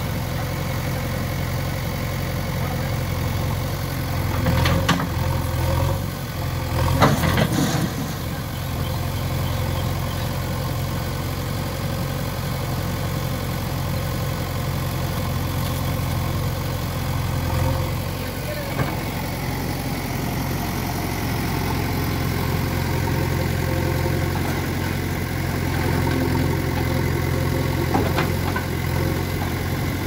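JCB 3DX backhoe loader's diesel engine running steadily while the backhoe works. Clattering knocks stand out about five and seven seconds in, with smaller clicks later.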